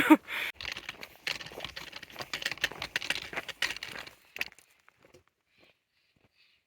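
Dense, irregular crinkly rustling for about four seconds, then it stops and near silence follows, with a few faint ticks.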